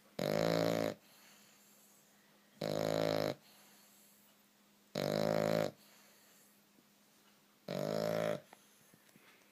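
A sleeping puppy with a cleft palate snoring really loud: four rasping snores about two and a half seconds apart, each lasting under a second.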